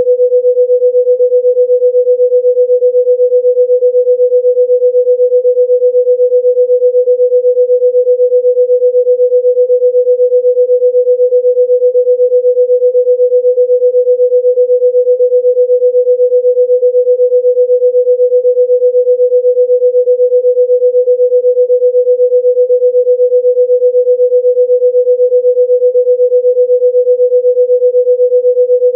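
A single steady, mid-pitched pure electronic tone, a healing-frequency tone, held unchanged with a fast, even ripple in its loudness.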